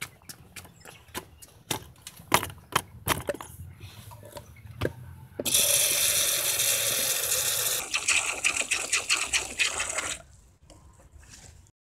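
Knocks and clicks of a wooden box being handled. About five seconds in, an outdoor tap is turned on and water gushes into a wooden sharpening-stone pond, filling it. After a couple of seconds the flow turns to uneven splashing, and it dies away about ten seconds in.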